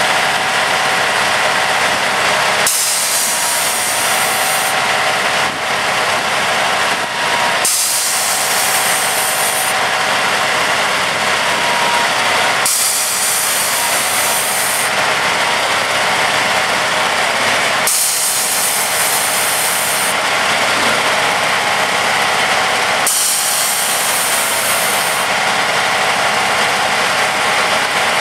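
Track tamper machine's diesel engine and hydraulic system running steadily as it works its outrigger jacks. A high hiss comes and goes every two to three seconds.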